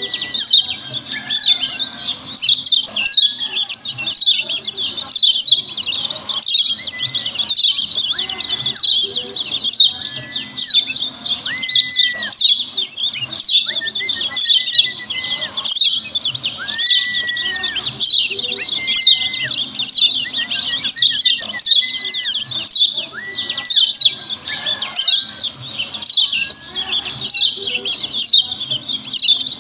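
Kecial kuning white-eye giving a rapid, unbroken run of sharp, falling 'ciak' calls, several a second, loud and busy. A lower, flatter whistled note comes in every second or two.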